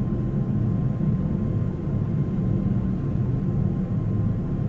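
Steady low drone of a jet aircraft heard from inside the cabin, with a faint steady whine above it.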